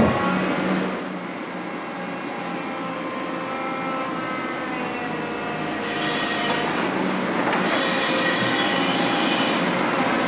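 Hydraulic excavator running: its engine a steady low hum, with thin, high, drawn-out squealing tones from the working machine over it, growing stronger about six seconds in.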